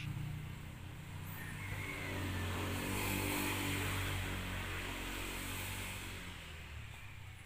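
A motor vehicle's engine running, growing louder to a peak about three seconds in and then fading away, like a vehicle passing by out of sight.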